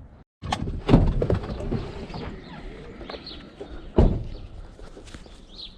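Small birds chirping in short calls, with two sharp thumps, about one second and four seconds in, that are the loudest sounds.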